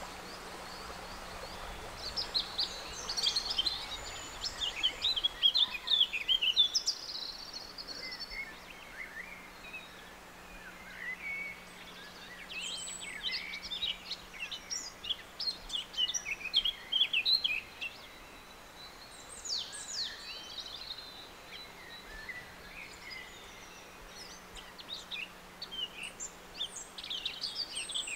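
Great tit nestlings in the nest box giving high, thin begging chirps in rapid bursts that come and go several times.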